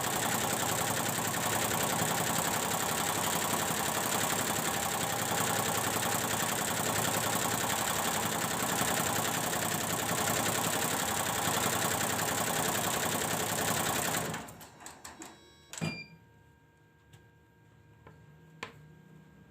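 Computerised embroidery machine running steadily on a test run after its drive unit's power supply was repaired, then stopping about fourteen seconds in, followed by a few clicks and a knock.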